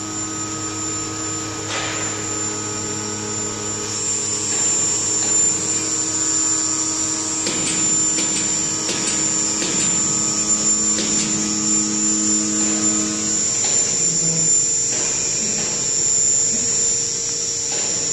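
Large industrial CNC machine running: a steady electric hum with a high-pitched whine over it. The lower hum cuts out about thirteen seconds in while the whine carries on, with a few faint knocks.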